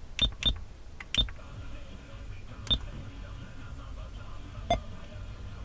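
Replacement car stereo head unit being operated, its buttons giving short sharp click-beeps; five presses, irregularly spaced, two of them close together near the start.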